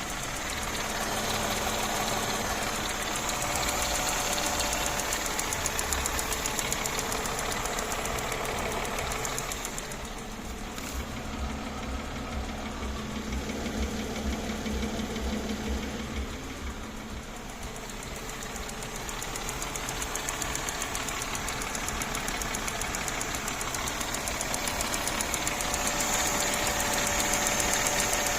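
Mercedes-Benz M112 2.6-litre V6 engine running with a knock. The sound stays steady, dipping in level for several seconds mid-way.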